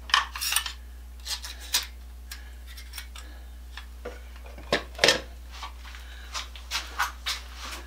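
Irregular light metallic clicks and clinks of square cut nails and an electric cut nailer being handled, with a louder cluster right at the start and another about five seconds in.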